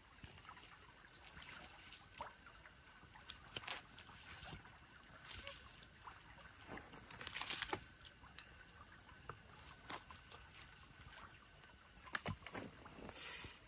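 Wood campfire crackling, with irregular small pops over a low hiss and louder flurries of crackle about halfway through and near the end.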